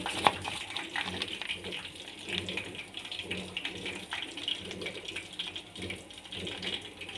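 A steady rushing noise like running water, with one sharp click about a third of a second in.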